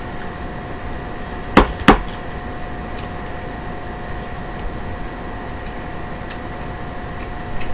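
Two sharp, loud clacks a third of a second apart, about a second and a half in, then a few faint clicks: chopsticks knocking against the frying pan and dishes while noodles are picked up. A steady high-pitched electronic whine runs underneath.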